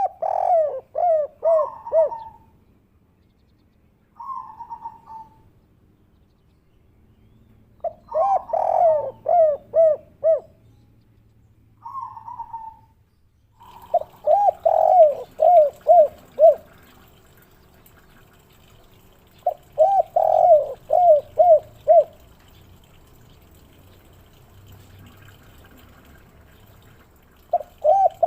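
Spotted dove (derkuku) cooing its 'kuk 3' song: about five phrases of quick coos, each one to three seconds long and coming roughly every six seconds, with a short single coo between some of them.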